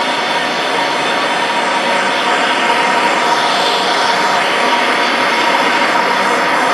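Steady hiss of a handheld gas blowtorch flame scorching a carved wooden bowl on a lathe, growing slightly louder about two seconds in.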